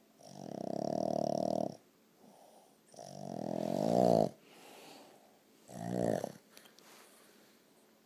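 Boston terrier snoring in its sleep: three loud snores, the first two about a second and a half long and the third shorter, with quiet breathing between them.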